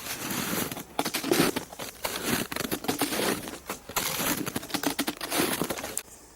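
Footsteps crunching along a trail at a walking pace, about one step a second, stopping near the end.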